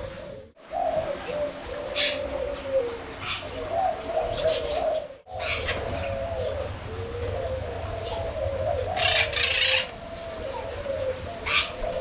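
Caged spotted doves (colour-mutation tekukur) cooing, one low coo phrase after another, with a few brief noisy rustles.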